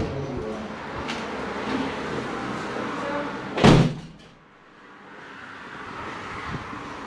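A glass-panelled door bangs shut once, a little over halfway through.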